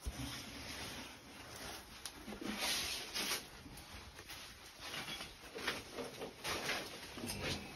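Rustling of a disposable coverall and gloves being put on, in irregular crinkly bursts, loudest about three seconds in.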